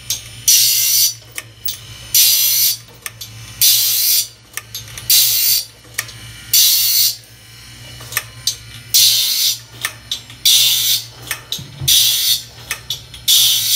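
Foley Belsaw saw sharpener grinding the teeth of a large circular shingle-saw blade one tooth at a time. Each pass is a high grinding noise lasting under a second, about every one and a half seconds, with a longer pause in the middle. Sharp clicks fall between the passes, over the steady hum of the sharpener's motor.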